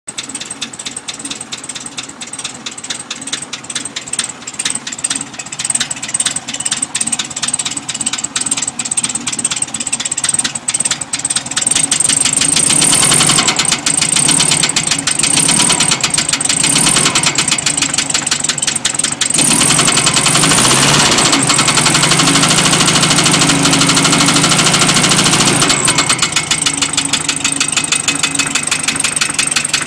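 Volkswagen engine running with a fast, steady knocking. It is revved up and down partway through, held at higher speed for several seconds, then drops back to idle near the end.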